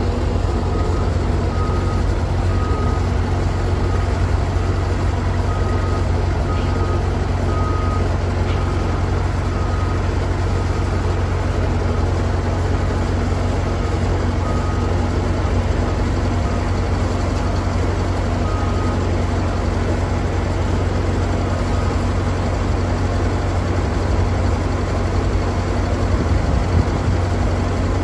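Skid-steer loader's engine running steadily under load, with its backup alarm beeping in short spells on and off, most often in the first ten seconds.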